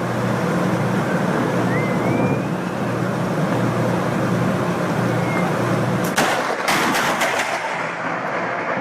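Steady rushing noise with a low hum, broken about six seconds in by a quick cluster of sharp cracks from a close lightning strike.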